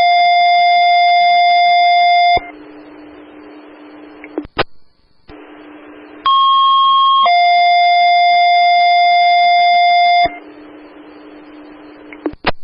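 Two-tone sequential paging alert tones on a fire-dispatch scanner channel: a steady tone ends a little over two seconds in, and about six seconds in the sequence sounds again in full, a higher tone for about a second stepping down to a lower tone held for about three seconds. Radio hiss and short squelch clicks come between the tones. These are the alert tones that precede a dispatch announcement.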